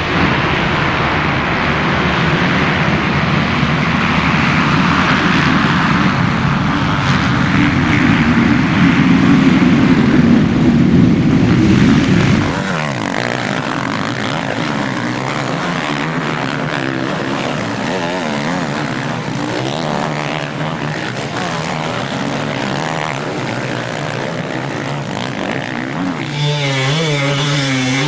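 A pack of motocross dirt bikes accelerating hard off the start line, many engines blending into one dense drone. About twelve seconds in it cuts to fewer bikes revving up and down as they ride through a corner, louder again near the end.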